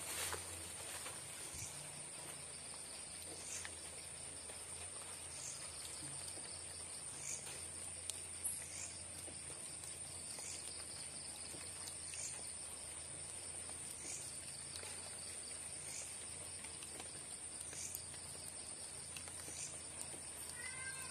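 Faint chorus of night insects: a steady high-pitched drone, with a short chirp repeating about every two seconds.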